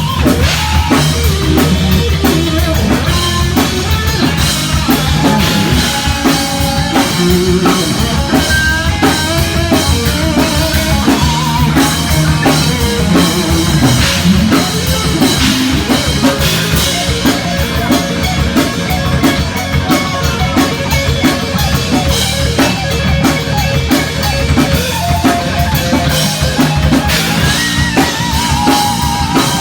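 Live heavy metal band playing an instrumental section: a lead guitar with bending, wavering notes over fast drums and rhythm guitar.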